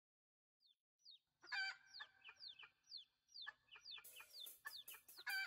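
Hen clucking in a quick run of short calls, each dropping in pitch, about three a second. From about four seconds in, light high ticking joins it as a backing track starts.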